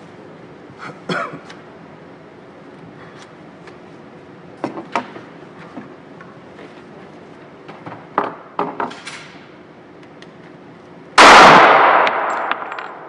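A single loud gunshot about eleven seconds in, echoing and dying away over a second or so in the concrete indoor range. Fainter sharp clicks and knocks come before it.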